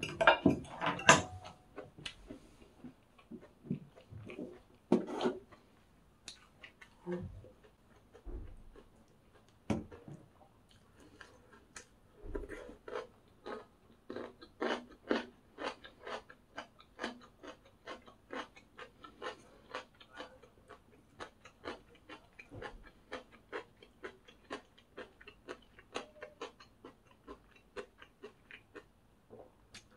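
Close-miked chewing of crisp food: a few louder bites and crunches in the first seconds, then a steady run of short wet crunches, about three a second.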